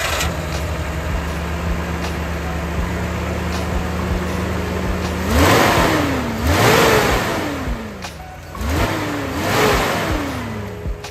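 Nissan VG30i 3.0-litre V6 with throttle-body injection idling steadily. About halfway through it is revved three times, the pitch climbing and falling back each time, before settling back to idle.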